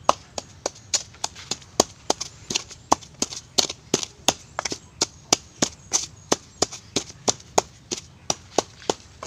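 Wooden pestle pounding chili peppers and salt in a small mortar, a steady knock about three times a second.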